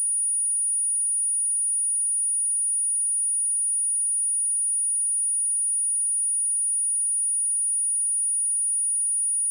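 A pure 9618 Hz sine-wave test tone, a single high-pitched whistle held steady at a constant level.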